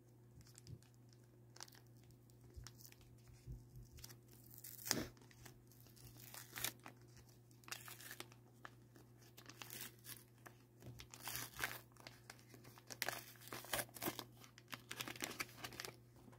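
A Pokémon card pack's plastic wrapper being torn open and crinkled by hand. It comes in irregular bursts of rustling from about four seconds in, the loudest near five seconds.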